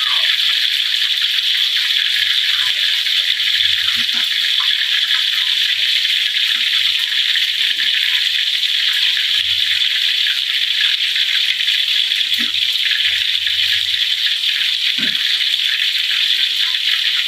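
Whole ikan duai fish frying in hot oil in a wok: a steady, loud sizzle thick with fine crackling spatters.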